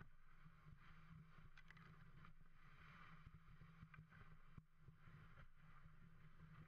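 Near silence: a faint, steady rumble and hiss of a dog sled gliding over thin snow and bare ground, with a few small clicks.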